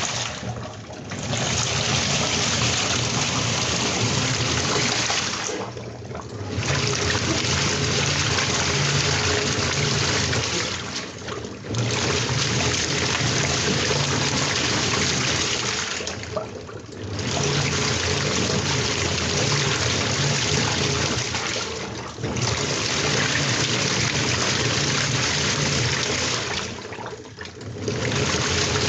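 Washing machine in a wash cycle: water sloshing and churning in the drum, dipping briefly about every five seconds.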